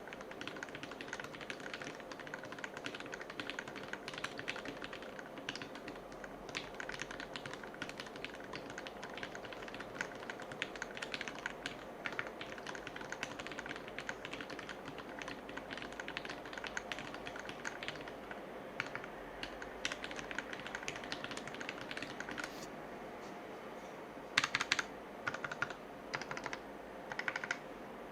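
Fast typing on a mechanical keyboard with Gateron Milky Yellow linear switches lubed with Krytox 205g0: a dense, quick clatter of keystrokes. Near the end the typing slows to a few separate, louder bursts of key presses.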